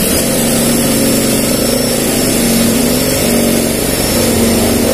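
Cordless drill with a spade bit boring a lock hole through a laminated cabinet door. The motor starts right at the beginning and runs steadily at one speed under load.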